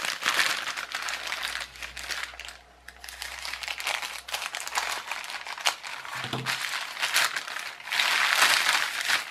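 Plastic postal mailer bag crinkling as it is handled, with short sharp snips of scissors cutting into it in the middle, then louder crinkling near the end as the bag is pulled open.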